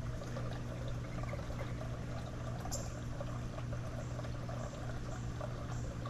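Steady low hum with a constant trickle of running water over it.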